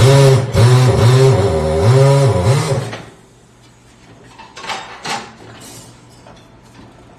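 Tire changing machine turning a car wheel as the tire is worked off the rim: a loud wavering tone with rubbing noise for about three seconds, then stops. A couple of short knocks follow as the tire is handled free of the wheel.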